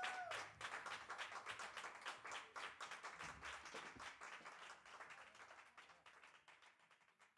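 Audience applauding, with many hands clapping, fading out gradually to near silence.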